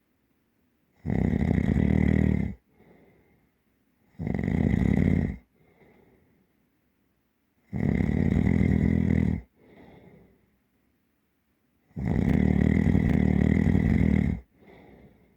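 Deep, heavy snoring: four long, loud snores a few seconds apart, each followed by a short, much softer breath out.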